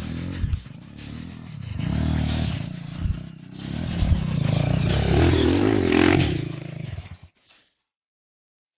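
Off-road dirt bike engine revving in repeated surges as the rider works the throttle on a rough trail. The sound cuts off suddenly about seven seconds in.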